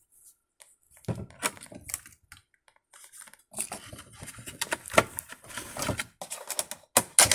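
Hot Wheels monster truck packaging, a clear plastic shell with a printed card insert, being handled: scattered plastic clicks, then busier crinkling and clicking from about halfway, with a couple of sharp knocks near the end.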